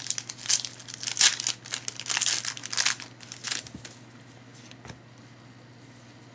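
A trading-card pack wrapper crinkling and tearing as it is opened and handled, a dense run of crackles for about three and a half seconds. It then gives way to a few faint ticks of card handling.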